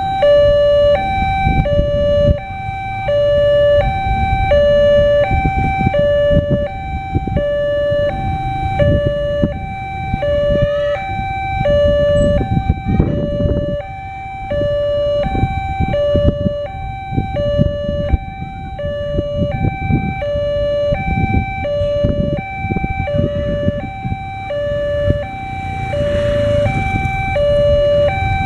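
Electronic warning alarm of a railway level crossing, sounding two tones in turn, high and low, about one cycle a second, to warn that a train is coming with the barriers down. A loud, uneven low rumble runs beneath it.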